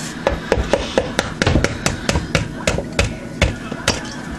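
Eggs being tapped against the rim of a mixing bowl to crack them: a quick, uneven run of sharp knocks, about three a second.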